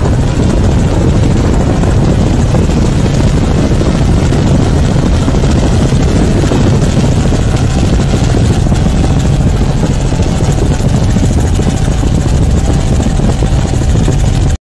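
Off-road race truck's engine running hard as the truck spins donuts in the dirt: a loud, steady rumble that cuts off suddenly near the end.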